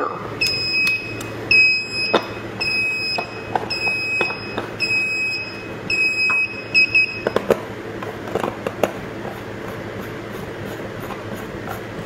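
Wireless alarm control panel beeping its exit-delay countdown right after being armed: a regular series of short high beeps that stops about seven seconds in. A few light clicks and knocks follow.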